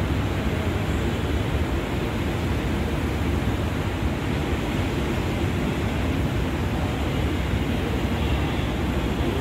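Steady rumbling ambient noise in a metro station with no train at the platform, unbroken by any distinct event.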